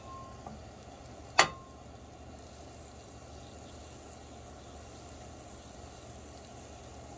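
Butter melting and sizzling faintly in a nonstick frying pan, with one sharp click of the spatula against the pan about a second and a half in.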